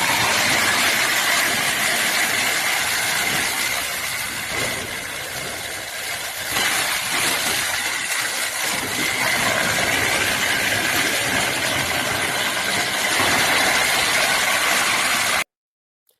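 A machine engine running steadily, as during loading work, with a faint steady whine on top. It cuts off suddenly near the end.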